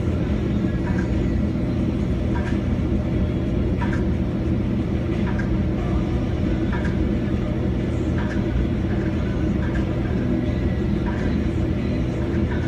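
Link-Belt 218 crawler crane's diesel engine running steadily under load while it lifts a pipe pile, a constant low drone. Faint light clanks recur about every second and a half.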